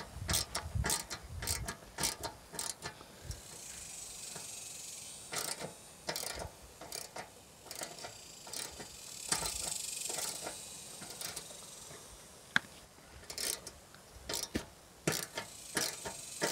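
Hand socket ratchet on a long extension clicking as it is worked back and forth, driving a mounting screw through the back of a metal meter base into a wooden wall. The clicks come in quick runs near the start and again near the end, with quieter stretches between.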